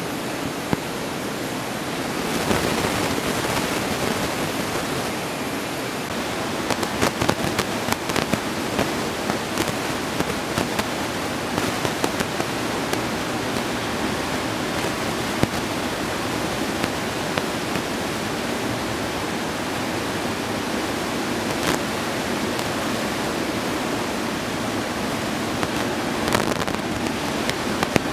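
Steady rushing noise of ocean surf breaking, with scattered sharp crackles.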